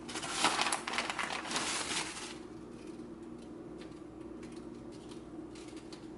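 Packaging crinkling as it is handled for about two seconds, then a few faint light taps.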